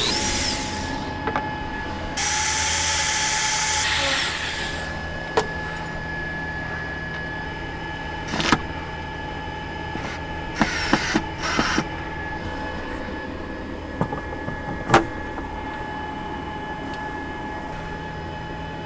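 Belt sander with a new belt spinning up, running loud for about two seconds and winding down, then a few short bursts and sharp knocks. A steady hum runs underneath.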